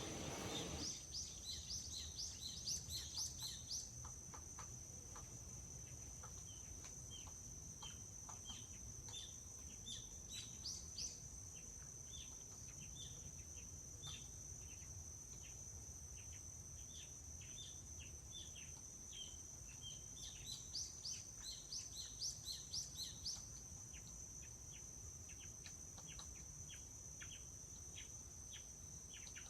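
Forest ambience: small birds singing in runs of quick, downward-sliding chirps, busiest near the start and again about two-thirds of the way through, over a steady high insect drone and a low rumble. A brief rushing noise sits at the very start.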